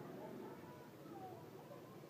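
Near silence: quiet room tone with a faint, indistinct background sound around the middle.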